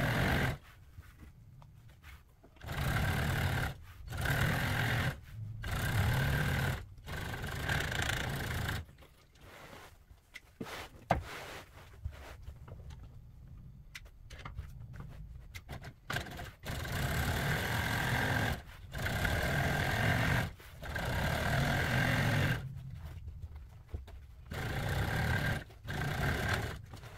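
Industrial sewing machine running in several bursts of a second or two each, stopping and starting as a seam in vinyl top material is stitched, with a quieter stretch in the middle.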